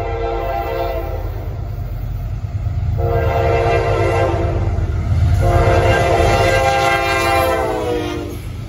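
Diesel freight locomotive's air horn sounding in three long blasts, the first cut off about a second in and the last sliding down in pitch as the locomotive passes close by, over a steady low rumble of the passing train.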